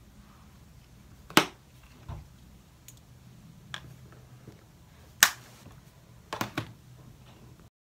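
Sharp clicks and taps of makeup being handled, a brush and eyeshadow palette knocked and set down. The two loudest come about four seconds apart and a quick run of three near the end, over a low steady hum.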